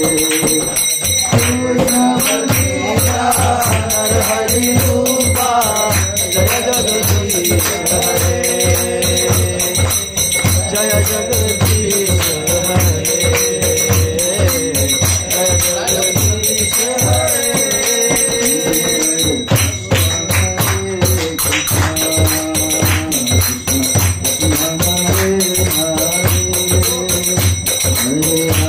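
Devotional kirtan music: a mridanga drum beating a steady rhythm under jingling metal percussion and a moving sung or played melody.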